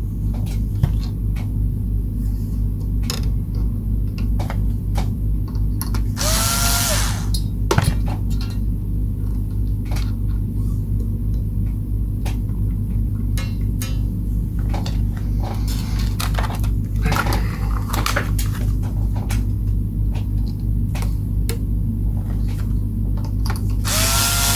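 A small power tool's motor hums steadily, with many scattered clicks of parts and tools being handled. Twice, about six seconds in and again near the end, there is a brief whir that rises in pitch as the tool spins up.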